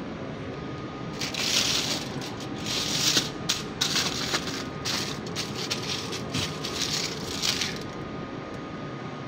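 Aluminium foil crinkling in a quick series of crackly bursts as it is spread and pressed down over a ball of dough on a stainless steel worktop, starting about a second in and stopping near the end, over a steady background hum.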